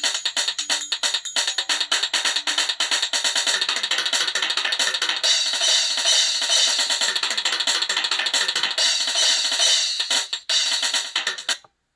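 Samsung SGH-X497 polyphonic ringtone: a busy, percussion-heavy tune of rapid tambourine- and drum-like hits, thin with little bass. It cuts off just before the end.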